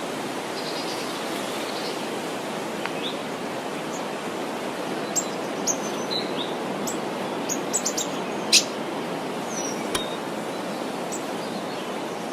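Steady outdoor background noise with scattered short, high bird chirps, most of them clustered in the middle.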